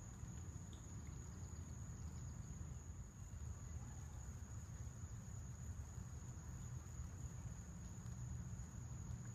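Steady high-pitched drone of an insect chorus, crickets, holding one unbroken note, over a low steady rumble.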